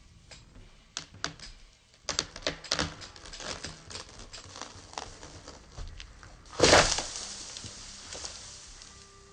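Tree stem giving way: a string of sharp snaps and cracks as the wood breaks, then one loud crash about seven seconds in as it lands on a cushion of cut branches, followed by a fading rustle.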